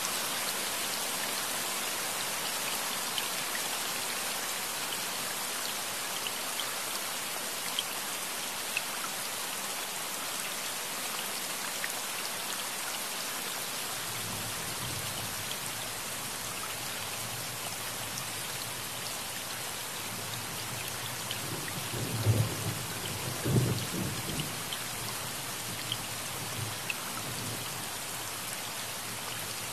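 Steady rain falling, with low thunder rumbling in from about halfway and two louder rolls of thunder about two-thirds of the way through.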